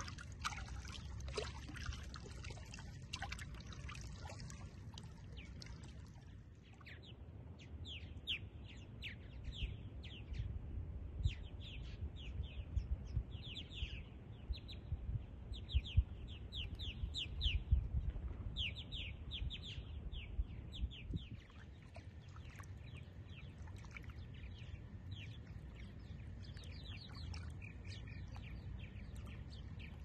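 Water lapping and trickling for the first several seconds, then a group of small birds giving rapid, repeated short chirps over a steady low rumble of moving water.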